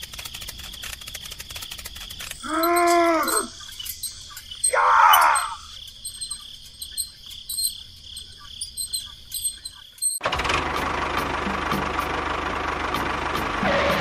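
Steady cricket chirping as background ambience. A short, voice-like cartoon sound effect with a rise-and-fall pitch comes about three seconds in, then a brief hissing burst. In the last four seconds a loud, steady, noisy rumble takes over.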